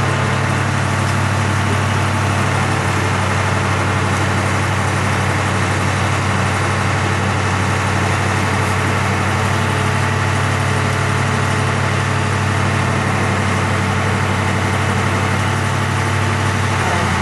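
A fire engine's engine idling steadily with a constant low drone, kept running to drive its raised aerial ladder.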